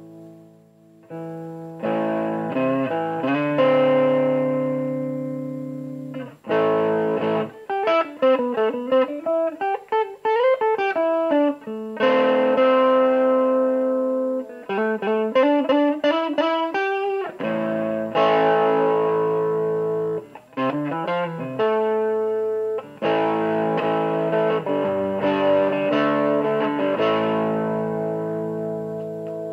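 Overdriven electric guitar, a Fender Stratocaster played through a Matamp C7 head and Marshall 1965A 4x10 cabinet with a Barenthien BB7 attenuator. Chords are struck and left to ring and fade, broken by quick single-note runs with bent notes about eight and fifteen seconds in.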